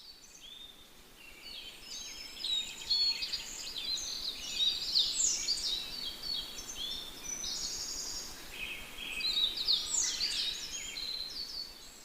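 Several songbirds chirping and trilling at once in a dense chorus, over a faint steady hiss; busiest a few seconds in and again near the end.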